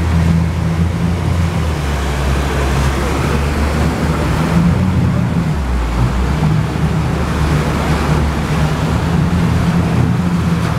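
A riverboat's motor running steadily, with water churning and rushing past the hull and wind on the microphone. The engine note drops for a moment about halfway through, then settles back.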